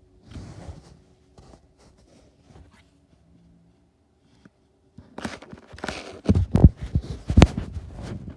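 Handling noise from a tablet being picked up and repositioned: soft scrapes for the first few seconds, then louder rustling with several heavy thumps in the last three seconds.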